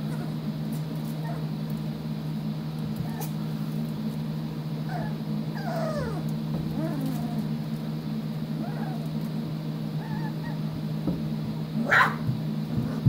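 27-day-old puppies giving short, high, squeaky cries now and then, with a louder cry near the end. A steady low hum runs underneath.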